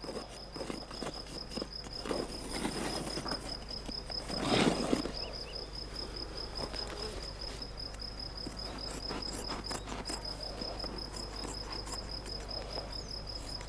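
Crickets chirping steadily in a fast, pulsing high trill, with scissors snipping and crunching through a dry sheepskin hide in short clicks. About four and a half seconds in there is a brief, louder rustle.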